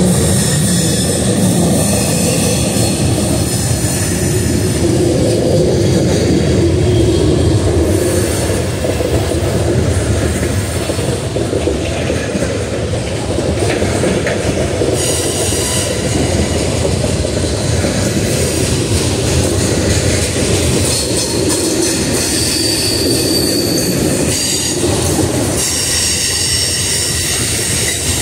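Freight train of covered hopper cars rolling past on a curve, loud and steady, with a high wheel squeal coming and going.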